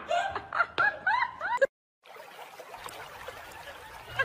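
A string of short, high-pitched cries that rise and fall, which stop abruptly. After a moment of silence comes the steady, faint rush of shallow water flowing over a concrete weir.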